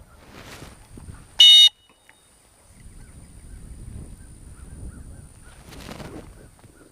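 One short, sharp blast on a dog-training whistle about a second and a half in, the single-blast signal a handler uses to stop a retriever running a blind retrieve. Low wind rumble on the microphone around it.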